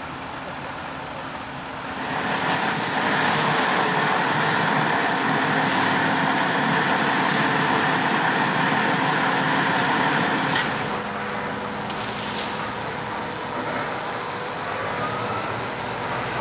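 Claas Xerion tractor and its mounted wood chipper running, a steady drone of engine and machinery. It grows louder about two seconds in and drops back a little past the middle, with a couple of sharp clicks after.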